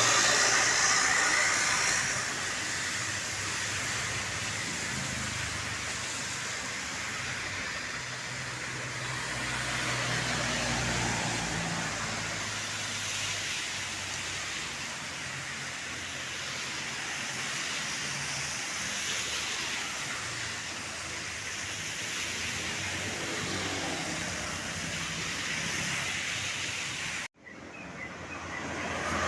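Roadside traffic: engines and tyres of passing vehicles making a steady rumble, loudest in the first couple of seconds. It cuts out abruptly for a moment near the end, then rises again.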